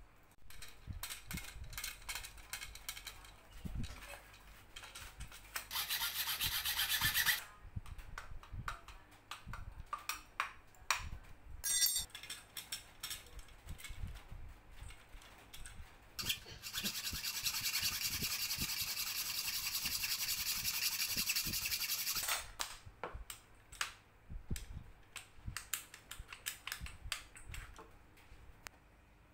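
Hand work on metal drawer-slide rails: scattered clicks and clacks of the metal rail being handled in a wooden holder. Two stretches of rasping scraping sit among them, a short one about six seconds in and a longer one of about five seconds later on.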